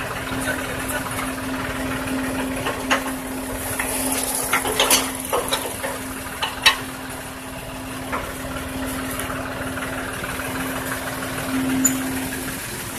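Tractor engine idling steadily, with a few sharp metallic clinks and knocks around the middle.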